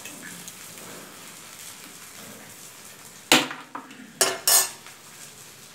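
Egg dosa sizzling quietly on a flat griddle (tawa), with three sharp metallic clinks of a utensil against the pan: one about three seconds in, then two close together a second later.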